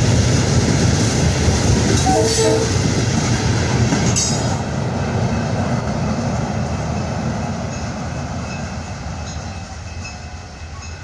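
Florida East Coast freight train with ballast hoppers rolling past at speed. The noise fades steadily over the last several seconds as the train moves away.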